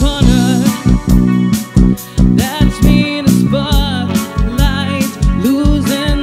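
Live band playing: a woman singing with vibrato over electric bass, electric guitar and a drum kit keeping a steady kick-drum beat.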